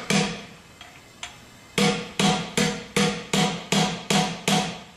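A hammer striking a brass drift against the hydraulic lash adjusters of a Mazda Miata engine's number-four exhaust valves, in short metallic ringing taps. There is one strike at the start and a pause with a couple of light ticks, then eight evenly spaced strikes at about two and a half a second. The tapping is meant to seat an exhaust valve hung open, perhaps by rust or carbon, which was letting leak-down air escape out the exhaust.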